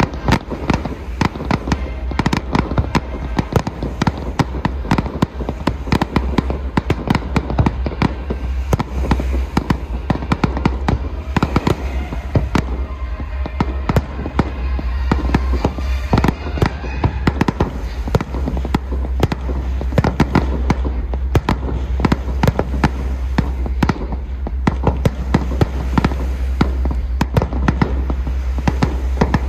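Aerial fireworks going off in a dense, continuous barrage: many sharp bangs and crackling reports every second, over a steady low rumble.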